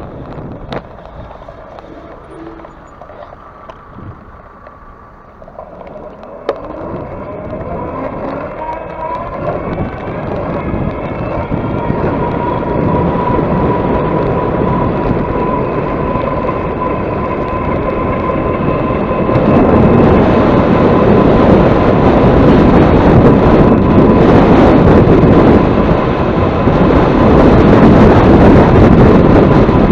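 A ride speeding up into the wind: a thin whine climbs a little in pitch and then holds steady, under wind noise on the microphone that keeps growing and becomes loud about twenty seconds in.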